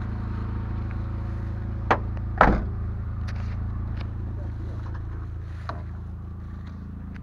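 VW Kombi van's engine idling steadily. A sharp knock comes about two seconds in, then a louder bang half a second later, followed by a few lighter clicks.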